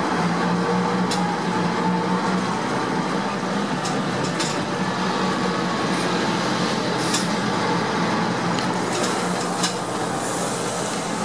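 Heuliez GX417 city bus heard from inside the passenger cabin while driving: a steady engine drone over road noise, with occasional sharp clicks from the cabin. A rushing hiss rises near the end.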